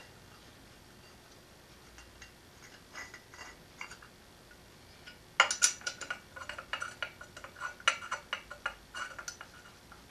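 Socket ratchet clicking in quick, irregular runs as bolts are turned in. A few faint metal clinks come first, and the ratcheting starts about five seconds in.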